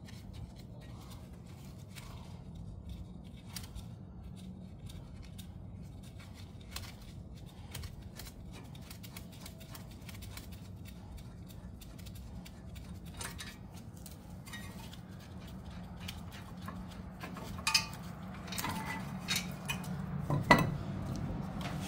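A few metallic clinks and knocks as a front brake rotor is handled and worked off the wheel hub, bunched in the last few seconds with the loudest about two seconds before the end. Before them, only a low steady background hum.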